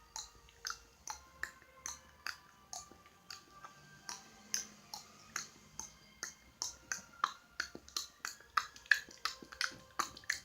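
Tongue clicks made with the mouth: a long run of sharp, hollow pops, about two a second at first and speeding up to about three a second in the second half, over faint background music.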